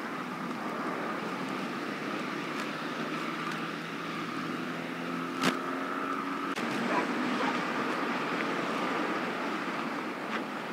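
Road traffic on a highway: cars going past with a steady tyre and engine noise and an engine hum in the first half, and one sharp click about halfway through.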